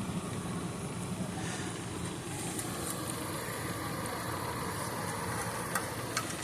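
Steady low background hum and hiss, with a few faint clicks near the end.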